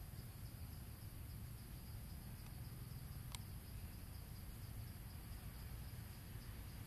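Faint, steady insect chirping in a pulsing high band over a low rumble, with one sharp click about three seconds in.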